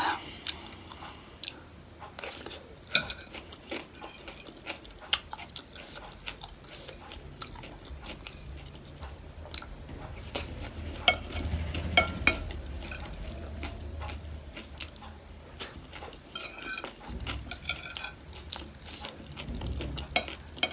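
Eating sounds: a spoon clicking and clinking against a bowl at irregular intervals, mixed with chewing of panipuri and chatpate.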